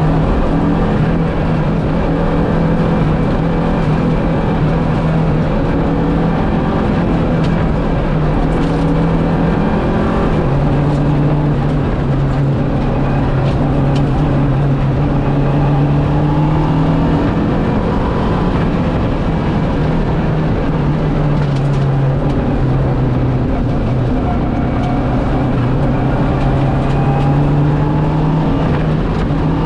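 Lancia Delta Integrale's turbocharged four-cylinder engine driven hard at high revs along a rally special stage. Its pitch holds fairly steady, dipping and climbing a couple of times as speed changes.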